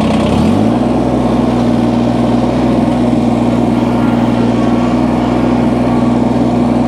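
Kubota BX23S subcompact tractor's three-cylinder diesel engine just after starting, its speed rising over the first half second and then running steadily.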